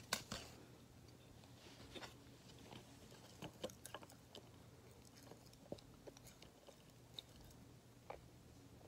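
A person chewing hard, crunchy chunks close to the microphone: faint, irregular crunches and small mouth clicks, with a louder crunch right at the start.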